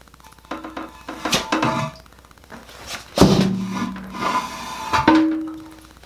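Porcelain toilet being lifted off its floor flange and set down on the tile: scrapes and knocks, with two loud knocks about three and five seconds in that each ring on briefly.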